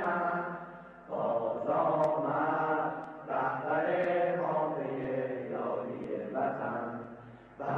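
Many voices chanting together in unison, in long sustained phrases with short breaks between them.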